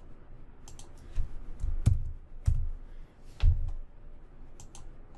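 Computer keyboard typing: scattered, irregular keystrokes, with a few heavier key thumps among them.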